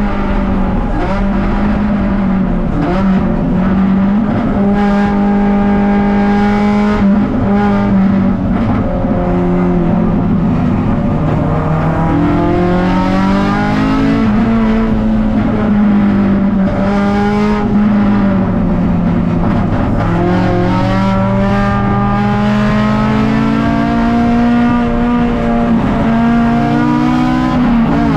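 Race car engine heard from inside the stripped, caged cabin under hard driving. The note climbs and drops back repeatedly as the car brakes and accelerates, with clear drops in pitch about two-thirds of the way in and again near the end, over steady road noise.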